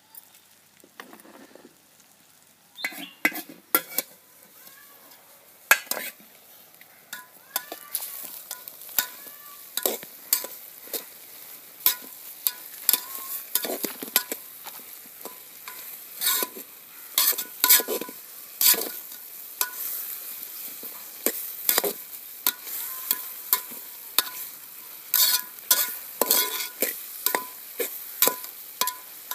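Metal spoon stirring chopped okra in a steel pot, with many irregular clanks and scrapes against the pot's sides starting about three seconds in, over a light sizzle of the okra frying.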